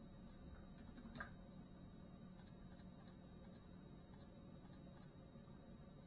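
Near silence: room tone with a faint steady low hum and a few faint, scattered clicks, the clearest about a second in.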